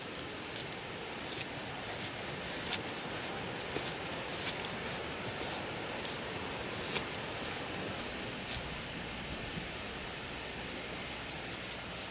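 Campn' Twin VG-10 slicer knife shaving thin curls off a stick of wood to make a feather stick: a run of short, dry scraping strokes that thin out after about eight or nine seconds.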